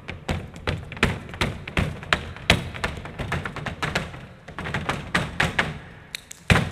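Malambo zapateo: two dancers' boots stamping and tapping on a stage floor in quick, rhythmic footwork, several strikes a second, with a burst of heavy stamps near the end.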